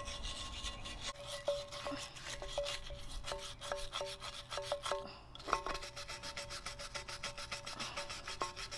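A stiff-bristled brush scrubbing rust and old paint off a cast iron weight plate in quick back-and-forth strokes, several a second, with a few sharper knocks mixed in.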